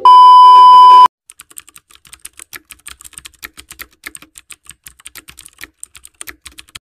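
A loud, steady test-tone beep of the kind played under television colour bars, lasting about a second and cutting off suddenly. Then comes a computer keyboard typing sound effect: a quick, irregular run of quiet key clicks.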